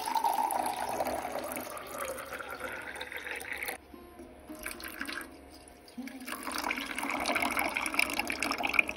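Water poured in a stream into a small copper pot, its pitch rising as the pot fills. After a pause of about two seconds, milk is poured into a second, smaller copper pot, its pitch also rising as it fills.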